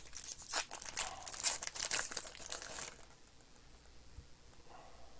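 Plastic wrapping of Panini Mosaic baseball card packs being torn open and crinkled by hand: a dense crackling for about three seconds, then only faint handling.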